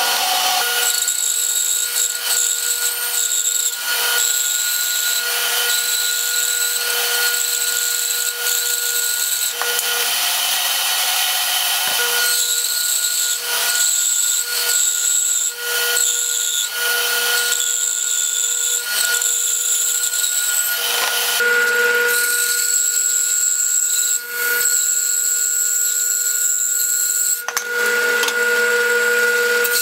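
Bandsaw running with a steady motor hum, its blade cutting a 10-inch log of blue-stained pine square. The hiss of the blade in the wood starts and stops many times as the log is fed through and turned between cuts.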